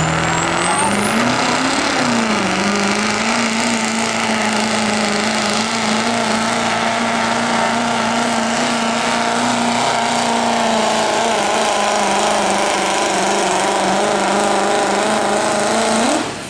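Duramax V8 turbodiesel in a Chevrolet pickup at full throttle, pulling a weight-transfer sled. The engine note climbs in the first two seconds and then holds steady at high revs, with a high whistle rising at the start. Near the end the engine drops off suddenly as the pull ends.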